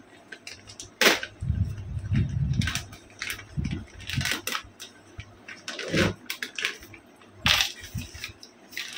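Printed plastic packet of a motorcycle chain kit crinkling and rustling as it is handled and opened, with irregular clicks and a few sharper snaps, the first about a second in and two more near the end.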